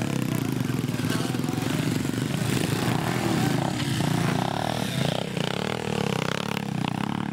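Pit bike engines running, with voices in the background.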